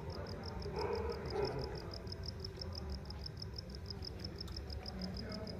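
An insect chirping in a steady, even rhythm of about six short high pulses a second, with faint distant voices and a low rumble underneath.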